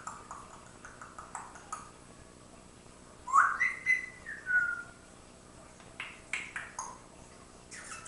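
African grey parrot whistling: a note that rises into a held tone, then a lower note that falls away, about three seconds in. Short clicks come before and after.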